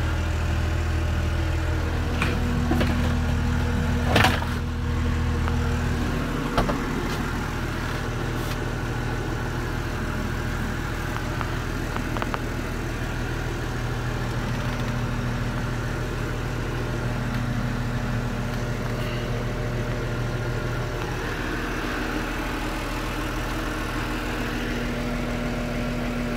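TimberJack forestry machine's diesel engine idling steadily, heard inside the cab. A few knocks and clicks come in the first seven seconds, and the deep hum drops a little about six seconds in.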